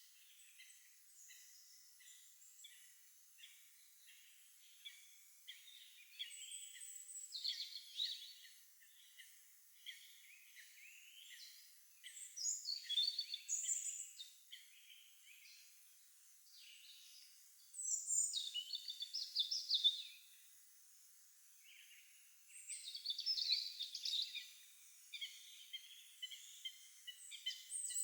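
Songbirds singing in spring: one bird repeats a loud song phrase of about two seconds, starting high and falling, roughly every five seconds, over a steady patter of chirps from other birds.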